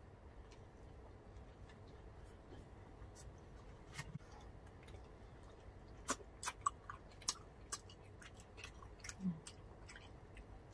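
Quiet close-up eating sounds: chewing grilled pork belly, squid and rice, with scattered soft clicks that bunch up in the second half, and a brief low hum near the end.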